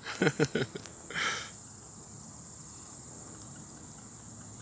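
Quiet outdoor ambience with a faint, steady high-pitched insect drone. A short mumbled voice and a breathy hiss come in the first second and a half.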